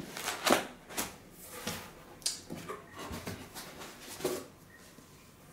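Cardboard box being opened by hand: flaps pulled open and cardboard rustling and knocking in a run of short scrapes and taps, the loudest in the first second, dying away about four and a half seconds in.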